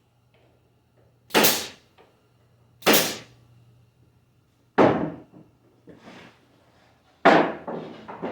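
Four sharp knocks, a second or two apart, each dying away quickly, as glued plywood drawer-box parts are fastened together with butt joints.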